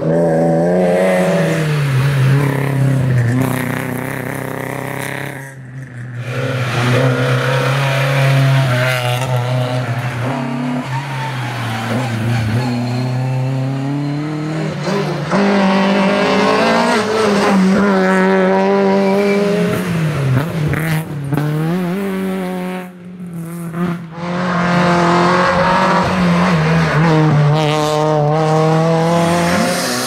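A succession of rally cars, among them a BMW 3 Series (E36) and a Peugeot 208, driven hard through tarmac bends. Each engine note climbs and falls as the car accelerates, lifts and shifts gear. The sound breaks off twice, at about 6 s and 23 s, as one car gives way to the next.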